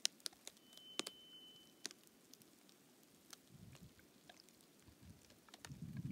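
Thawing lake ice crackling: scattered sharp clicks and pops with low creaking rumbles, as the thin ice rises and falls under a slight breeze. The low rumbling grows louder near the end.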